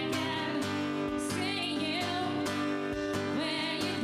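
Acoustic guitar strumming under a wavering sung vocal line.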